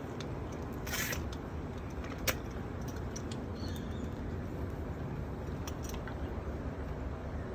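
Faint clinks and rustles of a horse's halter buckle and strap hardware being handled, a few short sounds about a second in, a couple of seconds in and near the end, over a steady low background rumble.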